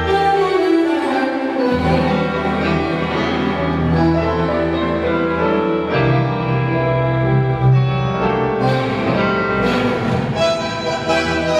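Argentine tango music with violins carrying a sustained melody over a bass line that shifts to new notes a couple of times.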